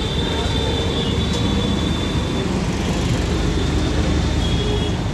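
Steady low rumble of traffic and street noise, with a thin high-pitched whine over it for the first half and again near the end.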